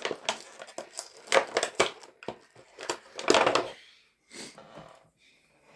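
Small plastic action-figure accessories and packaging being handled: a run of sharp clicks and knocks in the first two seconds, then a crinkling rustle about three seconds in.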